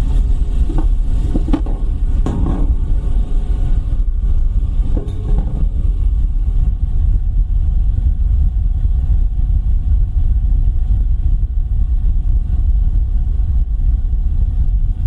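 A steady, deep, hollow rumble, with a few faint knocks or rattles in the first few seconds.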